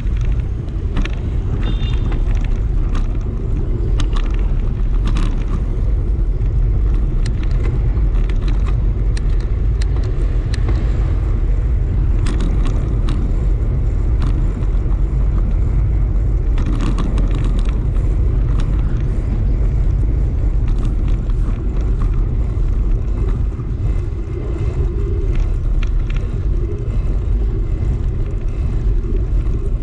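Wind rushing over the microphone of a moving bike, together with tyre noise on a concrete road and scattered small rattles and clicks.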